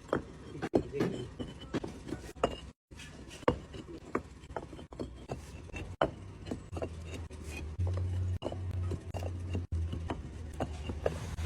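Concrete paving stones clacking and knocking against one another as they are handled, in a string of sharp irregular clicks. A low hum joins about seven seconds in.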